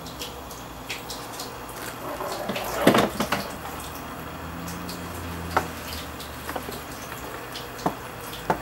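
Munchkin cat licking a kitten's fur: short, wet clicking licks at an uneven pace, with a louder, longer noise about three seconds in.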